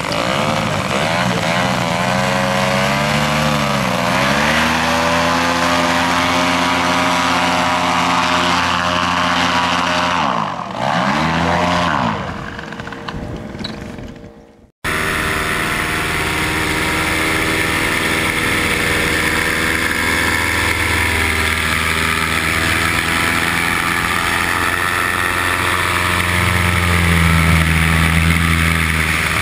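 Paramotor engine and propeller running at high throttle during a foot launch, its pitch dipping and recovering twice before fading out. After a sudden cut, a paramotor engine drones steadily in flight, heard from an onboard camera with wind noise, and grows a little louder near the end.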